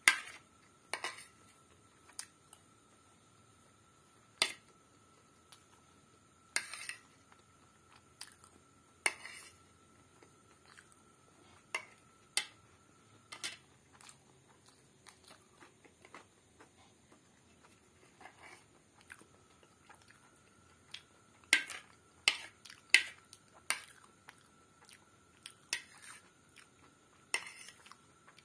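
Close-up eating sounds: a metal spoon clinking and scraping on a plate while scooping pasta, with chewing and mouth sounds in between. The sharp clicks come at irregular intervals, loudest near the start and in a cluster about three-quarters of the way through.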